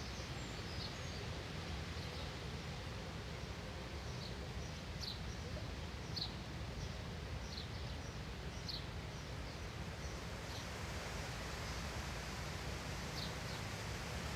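Faint outdoor background: a steady low hiss and hum, with scattered short, high bird chirps.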